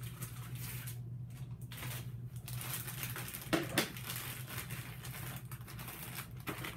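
Hands pressing and kneading soft modelling clay on a tabletop: irregular rustling and rubbing handling noises, with two sharper knocks a little past halfway.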